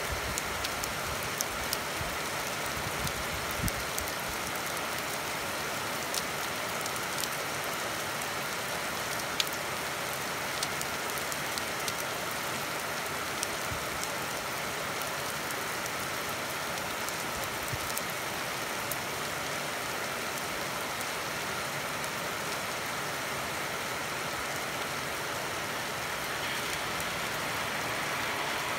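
Steady rain falling: an even hiss with scattered sharp ticks of drops striking near surfaces.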